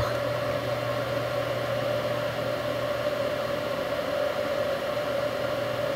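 A steady electrical or mechanical hum: a constant mid-pitched whine over a low hum and an even hiss, with no change in level.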